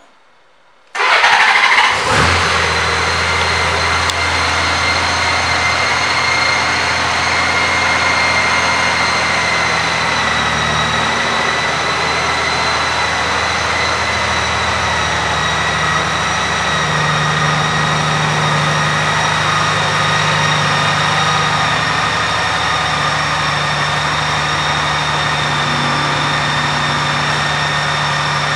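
2014 Honda Valkyrie's 1832 cc flat-six engine starting about a second in, with a short burst of revs as it catches, then idling steadily with a high-pitched whine above it.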